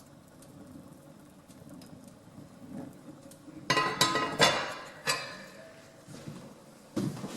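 A quick run of sharp metallic clanks and rattles about four seconds in, then another clank near the end, over a faint low background.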